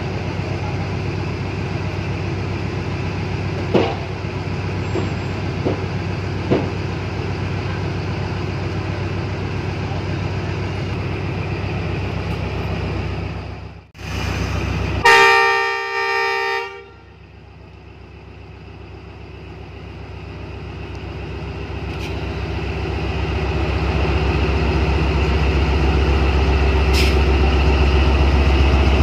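ZCU-30 diesel-electric locomotive idling with a steady low drone, then a loud air horn blast of about two seconds with several tones about halfway through. The diesel engine then runs up steadily, getting louder over several seconds and holding at the higher power, as the locomotive throttles up to depart.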